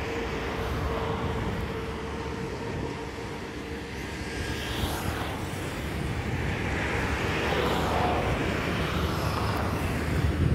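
Jet engines of a Boeing 777-300ER (GE90-115B turbofans) on approach with gear down, a broad rumbling rush that grows louder as the airliner comes closer.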